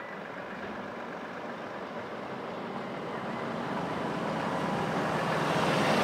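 Diesel Volvo tipper truck driving toward the microphone, its engine and tyre noise growing steadily louder until it passes close by at the end.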